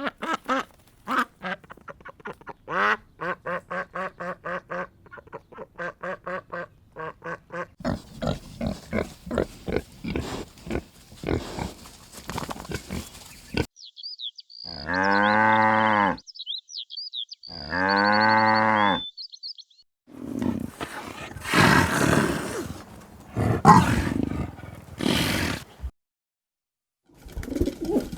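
A run of farm animal calls, one after another. First come quick repeated calls. Then two long drawn-out calls, each about a second and a half, with small birds chirping over them. Rougher, noisier calls follow.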